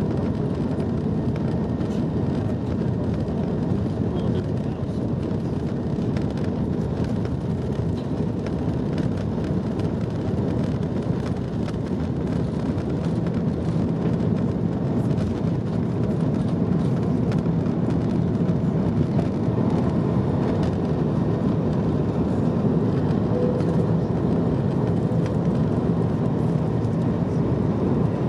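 Cabin noise of an Airbus A330-300 on its takeoff roll and liftoff: the steady roar of its General Electric CF6-80E1 turbofans at takeoff thrust mixed with the rumble of the runway, heard from a window seat over the wing, growing slightly louder in the second half.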